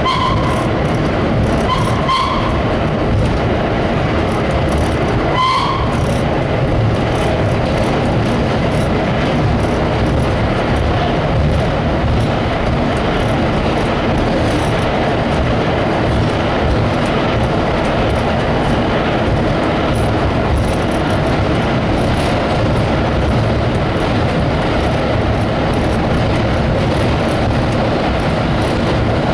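Restored IRT low-voltage subway train running at speed through a tunnel, heard from aboard: a steady loud rumble of wheels and running gear. Three brief high-pitched tones come in the first six seconds.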